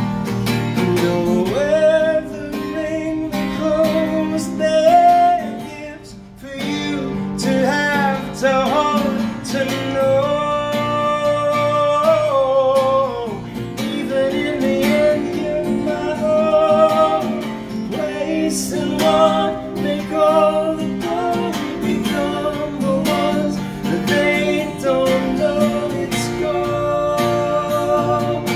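Live acoustic guitar played with a man's voice singing over it, a duo performing a folk song. The music drops briefly about six seconds in, then carries on.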